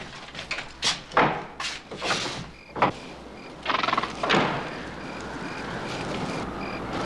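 Footsteps and knocks on wooden boards, then outdoor night ambience with crickets chirping in short, evenly spaced pulses. A brief rush of noise comes about four seconds in.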